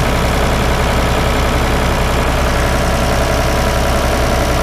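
Ford farm tractor's engine idling steadily. The engine has been overheating, and the thermostat is taken to be stuck closed so the coolant does not circulate.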